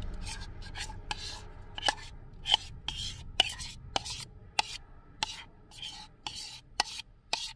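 A spoon scraping thick cake batter out of a mixing bowl into a frying pan, in a series of short, sharp scrapes at roughly two a second.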